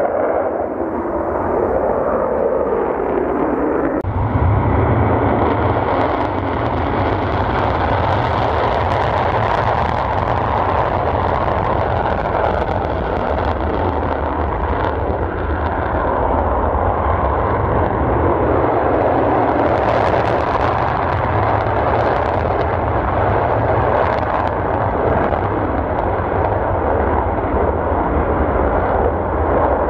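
Twin-engine F/A-18 fighter jets taking off on full afterburner: a loud, continuous jet roar with deep rumble and crackle. The sound changes abruptly about four seconds in, when a heavier low rumble sets in.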